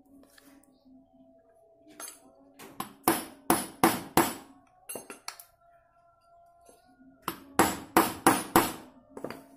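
Hammer tapping a shaft into a motorcycle engine's aluminium crankcase during reassembly. A run of four sharp metal strikes comes about three seconds in, and another run of five comes near the end, at roughly three strikes a second.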